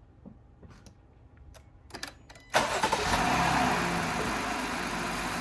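A 2022 Jeep Gladiator's engine starts suddenly about halfway through and settles into a steady idle. It starts on the newly fitted main battery, which shows the main cable is on the right post.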